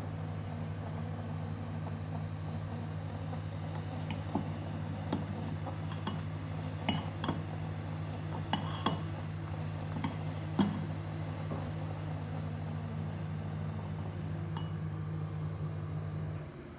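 Steady low hum of a running kitchen appliance that switches off abruptly near the end, with a series of light clinks of kitchenware over the middle part.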